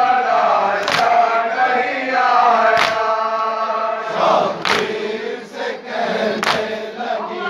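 Men of a Shia mourning group chanting a noha (lament) together, with a loud collective slap of chest-beating (matam) about every two seconds, four strokes in all.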